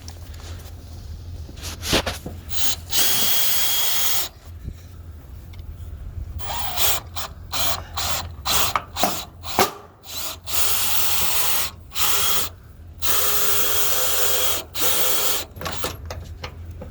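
Power drill run in repeated bursts of a second or two, with short stuttering trigger pulses between, drilling mounting holes through a wall.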